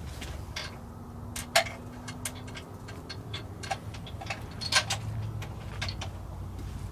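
Irregular light clicks and ticks, a dozen or so spread unevenly, the sharpest about a second and a half in and again near five seconds, over a faint steady low hum.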